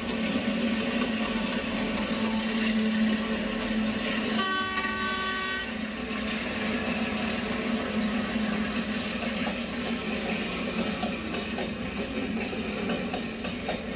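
Model NSW 48 class diesel locomotive hauling stock wagons on model track: a steady engine hum, with the horn sounding once for just over a second about four and a half seconds in.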